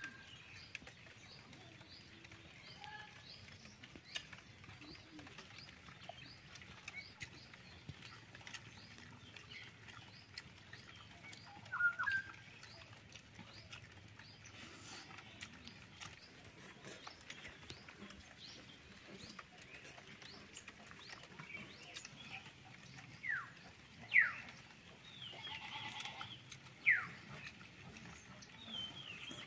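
Birds calling: a steady run of small high chirps, about two or three a second, through the first half, and a few louder, sharp falling calls near the end.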